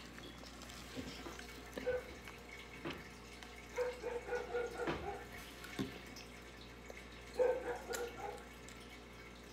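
Quiet, scattered small clicks and wet mouth sounds of a child handling a Fun Dip candy packet and licking its candy stick.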